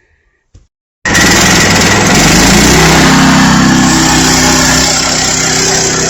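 Portable bandsaw sawmill running at full throttle. Its small gas engine starts abruptly about a second in, and its pitch climbs over the next second before settling into a steady run as the blade makes the first skimming cut along the log.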